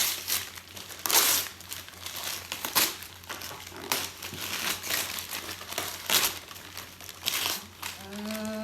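Plastic packaging crinkling and crumpling in bursts as it is torn open and handled.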